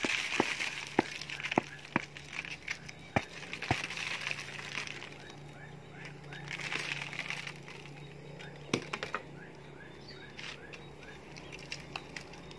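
Hands knocking and working an upturned plastic plant pot to loosen the root ball. Irregular sharp taps on the pot, with scratchy rustling in between as the pot and root ball shift against the leaves.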